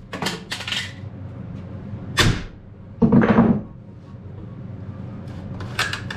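Handling noises: several separate knocks and clicks, a sharper knock about two seconds in, and a short louder scuffing noise just after three seconds.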